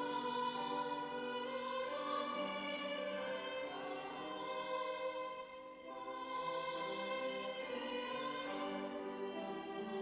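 Mixed church choir of men's and women's voices singing an anthem in sustained lines, with a short break between phrases a little past halfway.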